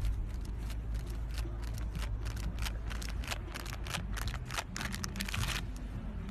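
Wind rumbling on the microphone, with a quick run of crunching clicks through the middle few seconds.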